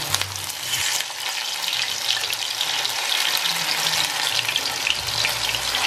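Pike fish cakes shallow-frying in hot oil in a pan: a steady sizzle full of fine crackles.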